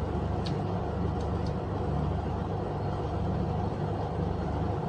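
Steady low background rumble with no speech, broken by two or three faint short clicks in the first second and a half.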